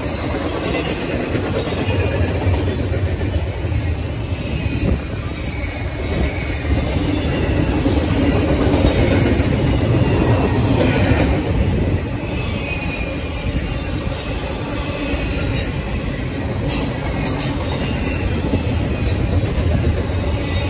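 A train rolling past on the rails: a steady rumble with rail clatter and a high wheel squeal running through it.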